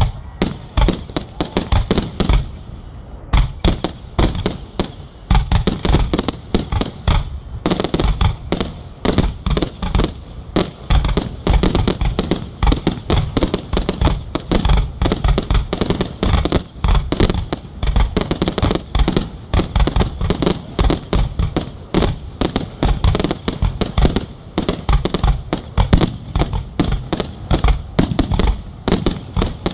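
Aerial fireworks going off in a continuous rapid barrage, several sharp bangs a second without a break.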